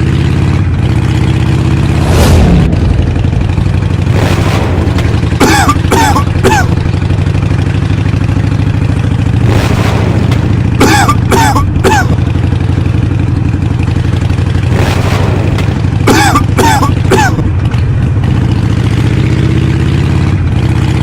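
Motorcycle engine running steadily, broken every few seconds by short loud bursts, several of them coming three in quick succession.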